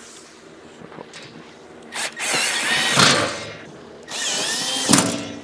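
Power drill driving screws into the steel shelf of a welding cart: two runs of about a second each, beginning about two seconds in, with the motor whine rising and falling in pitch and each run ending in a sharp knock.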